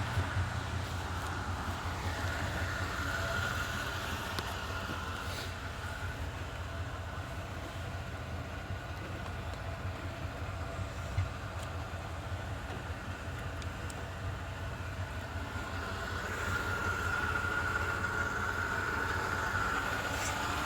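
Steady low rumble of a running motor vehicle, with a faint high whine that swells twice.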